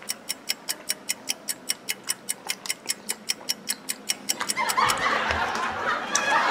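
Steady, fast clock-style ticking, about five ticks a second, fading out about five seconds in. From about five seconds in, a noisy hiss-like sound rises underneath it.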